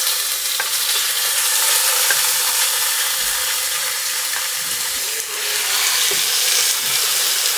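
Marinated chicken breast strips sizzling in hot oil in a pot, shallow-fried at high heat: a steady, dense hiss.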